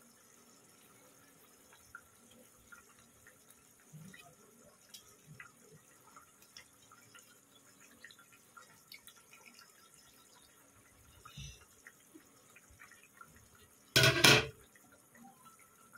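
A pan of posto-and-onion fish curry simmering: faint, scattered pops and small plops as the gravy bubbles. A short, loud burst of noise stands out about two seconds before the end.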